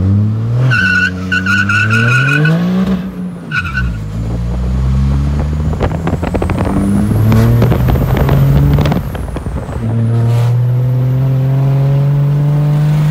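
Cummins diesel in a Dodge Ram pickup accelerating hard, heard from inside the cab. The revs climb, drop at a gear shift a few seconds in, climb again, and drop once more near the end. A high steady squeal sounds over the first few seconds.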